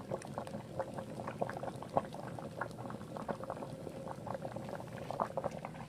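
Pot of whole chicken and ginseng broth at a rolling boil: steady bubbling with many irregular small pops.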